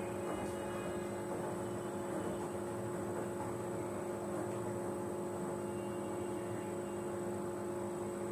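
Samsung front-load washing machine running: a steady hum with a few steady tones over an even noise.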